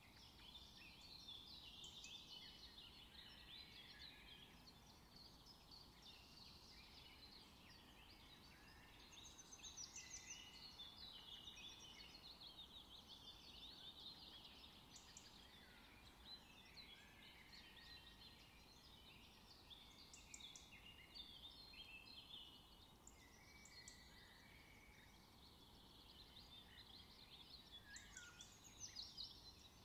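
Faint chorus of many small birds chirping and twittering continuously, in short rising and falling calls.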